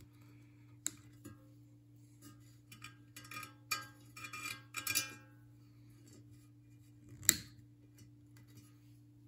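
Small clicks and short metallic ringing twangs from handling the subwoofer's parts and wire leads, mostly in a cluster a few seconds in, with a sharper click later. A steady low hum sits underneath.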